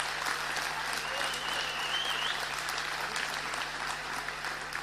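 Audience applauding: a steady patter of many hands clapping that eases a little toward the end, with a brief high whistle rising through it near the middle.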